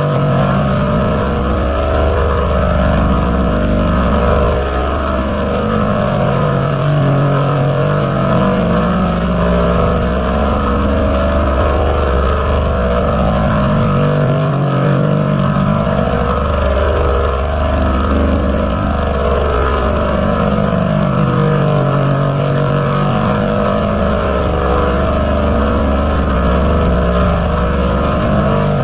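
Loud, dense, distorted din of layered, pitch-shifted audio from a 'G-Major' meme sound-effect edit. It buzzes without a break, with a low hum that drops in and out every few seconds.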